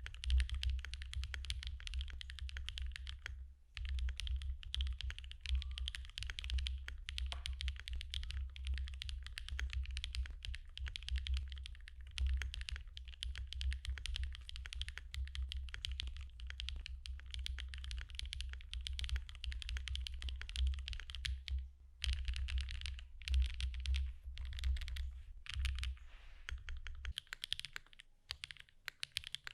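Continuous typing on a Qk60 mechanical keyboard with lubed Gateron x SwagKeys Modern Grey linear switches on an aluminium plate, a dense run of key strokes with short pauses about 3.5 s and 22 s in. A low hum sits under the typing and drops away near the end.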